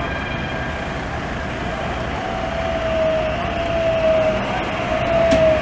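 Translohr rubber-tyred tram approaching, its electric drive giving a single whining tone that comes in about two seconds in, grows louder and slowly falls in pitch. Steady street traffic noise runs underneath.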